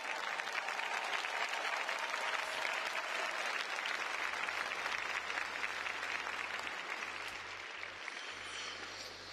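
Arena crowd applauding, the clapping slowly fading toward the end.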